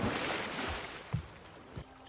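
A body plunging into water: a large splash that fades over about a second and a half into sloshing, with a few low thuds under it.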